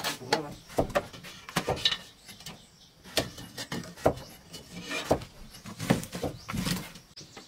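Irregular wooden knocks and scrapes: a wooden stick clattering against a metal cooking pot and the firewood of a wood-fired brick stove.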